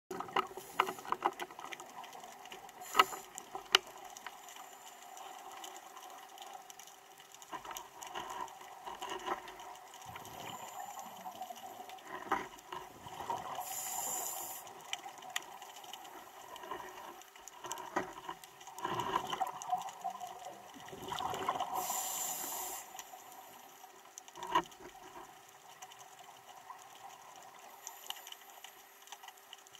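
Scuba diver breathing through a regulator, heard underwater: surges of exhaled bubbles rushing out every few seconds, with scattered sharp clicks and a faint steady hum underneath.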